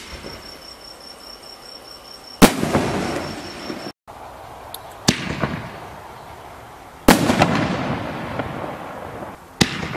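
Canister firework shells fired from a mortar tube: a sharp launch thump, then about two seconds later a much louder burst overhead with a long rolling echo, heard twice. The second burst, a white strobe shell, is followed by a stretch of small crackling pops from the strobe stars, and another shell launches near the end.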